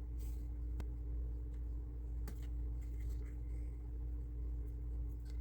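Steady low background hum with a faint steady tone, and a few faint light clicks from small model-kit pieces and stickers being handled.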